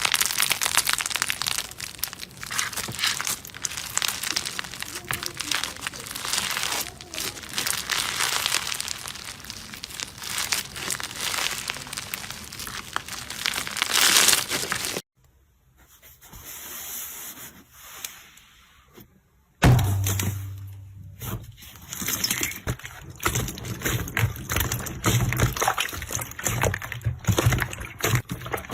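Slime being squeezed and poked by hand, with dense crackling, squishing clicks. It cuts off suddenly about halfway through to a quiet stretch. About two-thirds of the way in, the clicking resumes over a steady low hum.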